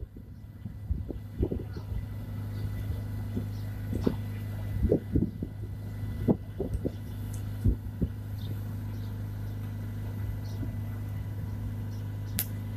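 A steady low engine drone, with a handful of dull knocks in the first eight seconds and a sharp click near the end.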